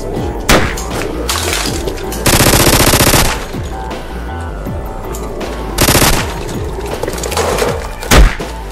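Automatic rifle gunfire over background music: a single shot about half a second in, a rapid burst of about a second just after two seconds, a shorter burst around six seconds, and one very loud shot near the end.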